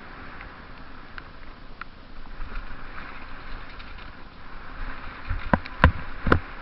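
Mountain bike descending a wet trail: a steady rush of wind and tyre noise with light clicks, then a few sharp knocks and rattles of the bike over bumps about five to six seconds in.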